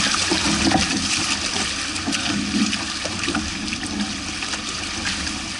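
Water rushing and splashing past the twin hulls of a Hobie 16 catamaran under sail: a steady rushing hiss with scattered small splashes.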